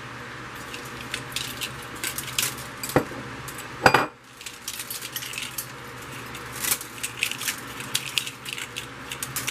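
Strands of silver bead trim clicking and rattling as they are handled and dragged across a tabletop, with two louder knocks about three and four seconds in as the heavy glass is set down on the table. A steady low fan hum runs underneath.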